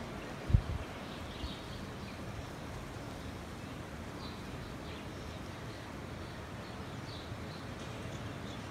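Faint high bird chirps scattered over a steady low rush of wind, with one short low thump about half a second in.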